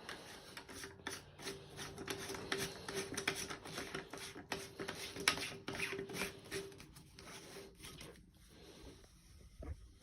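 Replacement toilet tank parts being handled and shifted inside the tank: a run of scraping, rubbing and small clicks, with a faint steady hum through the middle, going quieter near the end.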